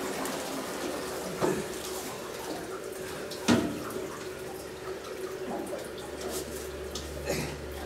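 Moromi (fermenting sake mash) pouring and splashing from a stainless steel pail into a hanging cloth sake bag, with a few sharp metal knocks from the pail, the loudest about three and a half seconds in, over a faint steady hum.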